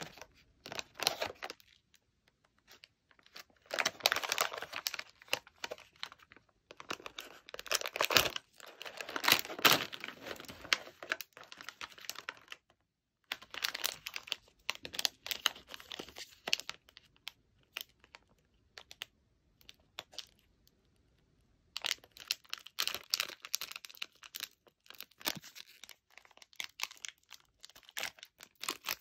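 A snack bag being torn open and its plastic wrappers and tray crinkled in the hands. The crackling comes in several spells with short pauses between.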